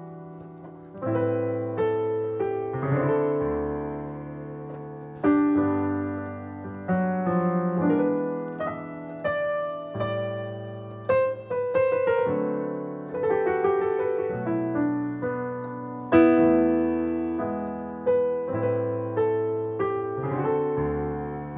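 Nord Stage 3 digital stage piano playing a slow, reharmonized hymn in rich extended chords such as Em9, with passing chords between them; each chord is struck and left to ring and fade before the next, about one a second.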